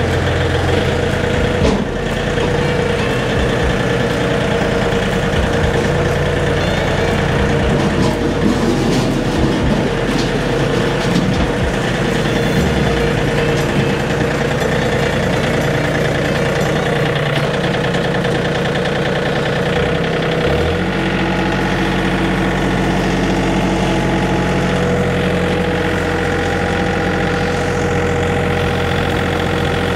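John Deere 3320 compact tractor's three-cylinder diesel engine running steadily as the tractor drives and pushes snow with its front loader bucket. The engine note shifts about two-thirds of the way in.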